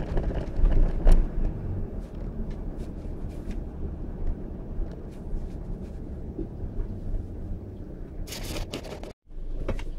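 Road and engine noise heard inside the cab of a Mercedes Sprinter-based camper van driving on city streets: a steady low rumble with scattered light knocks. A short louder burst of noise comes near the end, and then the sound cuts out for a moment.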